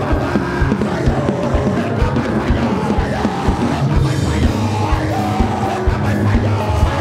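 Loud live church music with a steady drum beat, under a crowd of worshippers praying aloud and shouting all at once.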